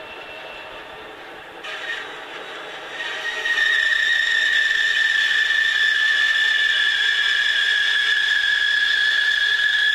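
Bandsaw with a 1/4-inch blade sawing the profile of a wooden cabriole leg. The saw runs fairly quietly at first, then about three seconds in the blade bites into the wood and a loud, steady, high-pitched whine sets in and holds.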